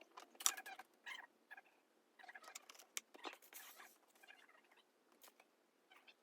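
Faint handling noise from hands working on a small washing machine's motor wires and plastic parts: scattered light clicks and scratching, with a short rustle about halfway through.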